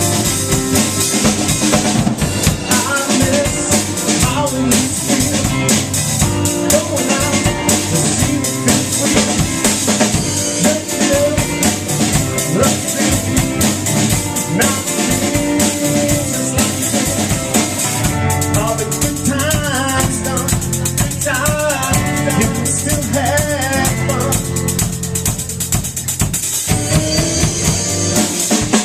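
Rock band playing an instrumental passage live, with a full drum kit (bass drum, snare and rimshots) driving under guitar, with no singing.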